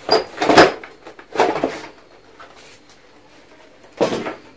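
Handling noise as a CRT television is opened up for repair: three short, noisy bursts of knocking and rubbing, near the start, about a second and a half in and about four seconds in.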